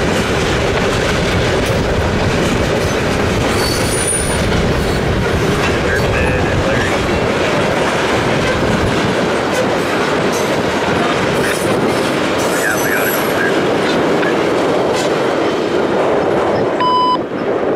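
CN freight train cars rolling past at close range: a steady loud rumble of wheels on rail with clickety-clack and a couple of brief high wheel squeals. Near the end a short electronic beep sounds over a radio scanner, the tone that opens a trackside defect detector's report.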